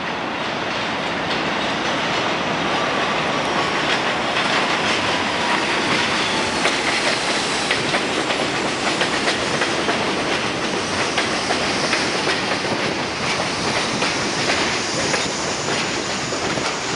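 R62A subway train pulling into the station alongside the platform: steady wheel-on-rail rumble with rapid clickety-clack of wheels over rail joints and faint metallic squeals. It grows louder over the first few seconds as the cars come alongside.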